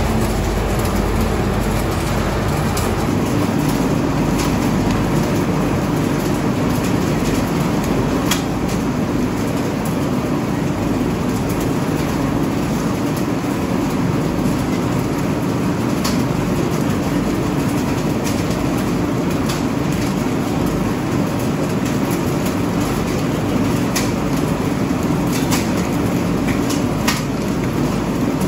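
Olive mill cleaning line running steadily: the elevator conveyor and the olive washing machine give a constant machine noise, with scattered sharp clicks over it.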